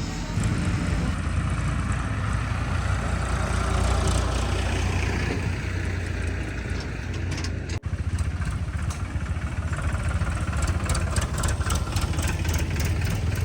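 A vehicle engine running steadily with a deep hum, cut by a brief break about eight seconds in.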